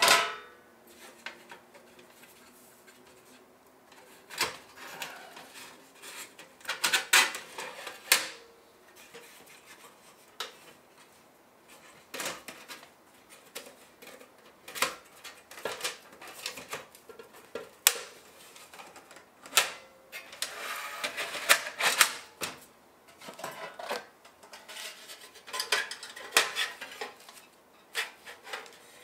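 Thin titanium wood-stove parts clinking and rattling as they are handled, in irregular bursts of clatter with a brief metallic ring at the start.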